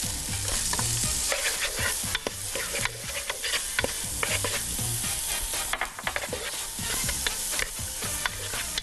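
Chopped onion sizzling as it fries in hot oil in a stone-coated pot, stirred with a wooden spatula that scrapes and taps against the pot again and again. The onion is being browned.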